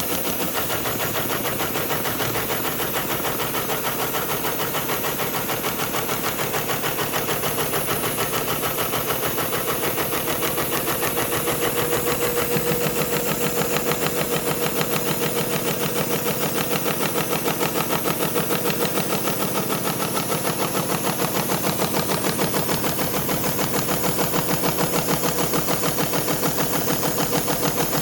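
SEWPRO 273-6040 heavy-duty programmable pattern sewing machine running steadily, its needle and shuttle hook stitching a diamond pattern in heavy thread with a fast, even rhythm. A steady tone joins the stitching about twelve seconds in.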